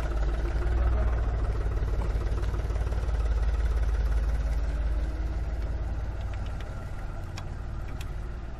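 Tractor engine idling steadily, with a few light metal clicks near the end as hydraulic hose quick couplers are pushed onto the valve block.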